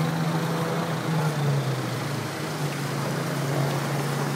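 Vehicle engine running steadily with a low hum that dips slightly in pitch about two seconds in, over a steady wash of noise as traffic moves through floodwater.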